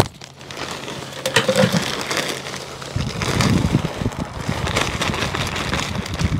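Landscape fabric liner and potting soil in a hayrack planter basket being handled, an irregular rustling and crunching that grows louder and busier about three seconds in.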